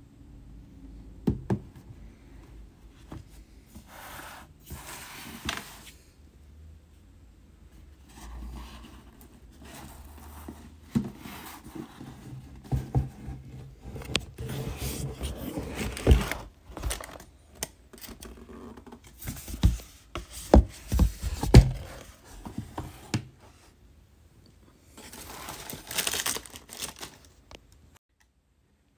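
Rigid cardboard sneaker box being handled and its lid worked off, giving irregular knocks, thumps and scrapes with several short bursts of rustling.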